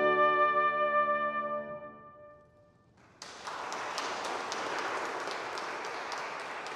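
The final held chord of a trumpet with piano fades away. After a moment of near silence, applause breaks out about three seconds in and carries on steadily.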